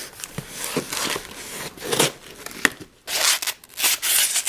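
A large folding knife blade slits the packing tape on a cardboard box and the cardboard is torn open, giving scratchy tearing and crinkling strokes. The loudest, brightest strokes come near the end.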